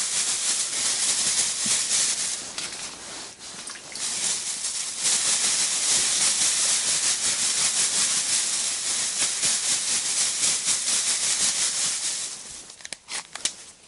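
Crumbly fishing groundbait rustling in a steady, gritty way as it is worked by hand. The rustling dips once early, then runs steadily and ends in a few separate clicks near the end.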